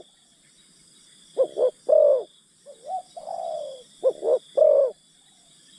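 Spotted doves cooing: two three-note phrases, each two short notes and a longer one, with a single long falling coo between them. Under the calls is a steady high insect buzz.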